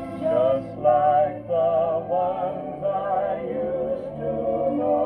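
A 45 rpm vinyl record playing on a 1960s HMV (His Master's Voice) record player, heard through its own speaker: a vocal with vibrato over a steady accompaniment.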